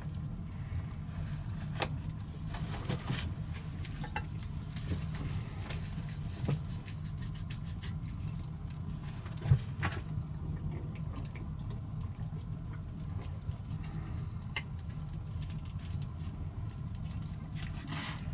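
Open wood fire crackling and popping in a stone hearth: irregular sharp snaps over a steady low rumble, with one louder snap or knock about halfway through.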